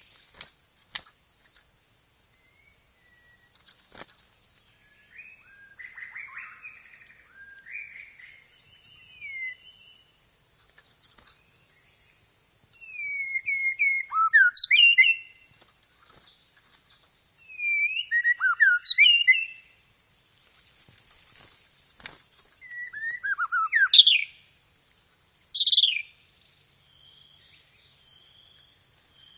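White-rumped shama (murai batu) singing in several loud bouts of fast, sweeping whistled notes and rolls, separated by pauses; its song carries mimicry of fighting sparrows. A steady thin high tone runs underneath.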